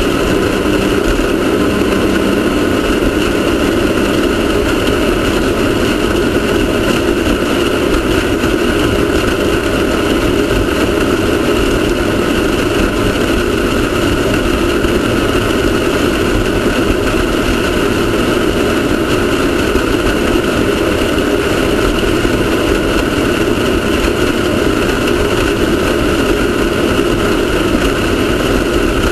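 Off-road race car's engine running continuously at a fairly steady pitch, with no big rises or drops in revs.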